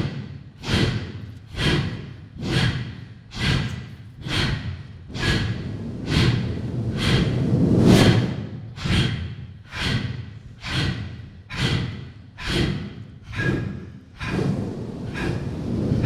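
Loud rhythmic breathing: sharp, forceful breaths repeating evenly about once a second, each starting suddenly and fading.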